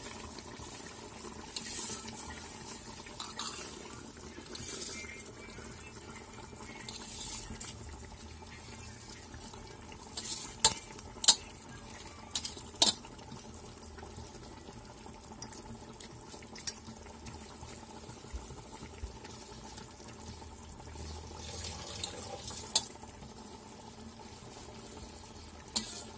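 Washed rice being tipped and pushed off a steel plate into a pot of mutton and masala: a few short soft rushes of sliding rice, then a scatter of sharp clinks of steel against steel from about ten seconds in.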